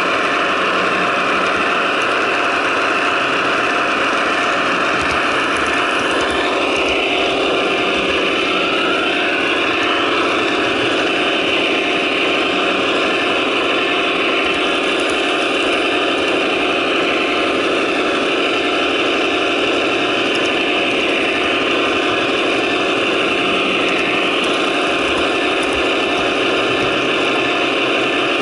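Sound decoders in a pair of HO scale GE AC6000CW model locomotives playing a recorded sixteen-cylinder turbo diesel engine through small onboard speakers. It runs steadily, with a brief wavering in pitch about seven to ten seconds in.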